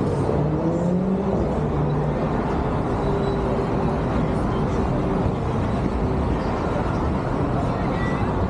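Steady road traffic noise, with faint engine hum in the first few seconds.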